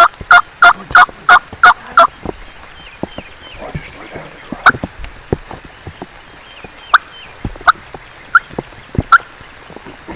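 Wild turkey yelping: a run of loud, evenly spaced yelps, about three a second, that stops about two seconds in. After it come scattered single sharp taps.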